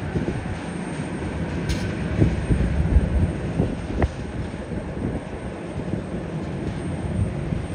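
Steady low rumble of airport apron background noise, with irregular low thuds and a faint steady high tone.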